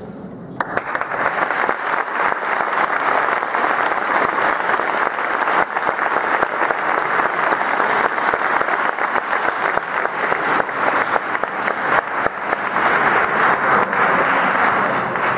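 Audience applauding: dense hand-clapping that starts suddenly under a second in and keeps up steadily.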